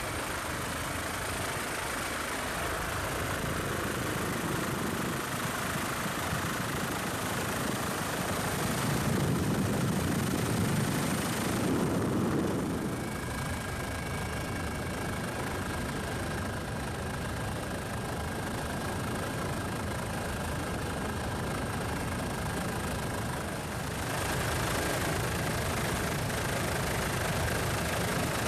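Steady engine noise with a constant rumble, whose character shifts abruptly about twelve seconds in and again near the end.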